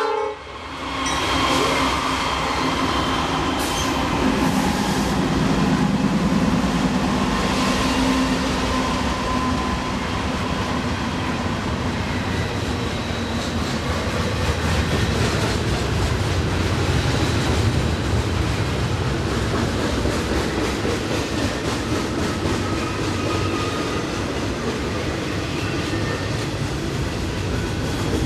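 Norfolk Southern double-stack container train rolling past downgrade: a steady low rumble with wheels clattering over the rail, and faint thin wheel squeal at times.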